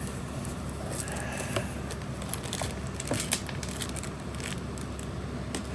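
Handling of packaging: scattered light clicks and crinkles, over a steady low hum.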